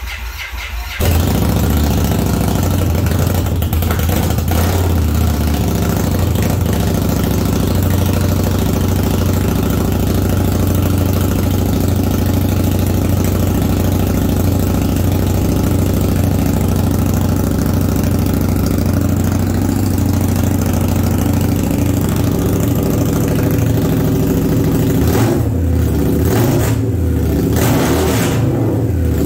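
Indian Scout Bobber's V-twin engine starts up, catching about a second in, and then runs steadily in neutral at a fast idle, its note changing near the end.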